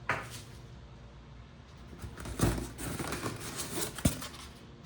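Handling noises while unpacking: parts being set down and packaging rustled, with a soft thump about halfway and a sharp click near the end.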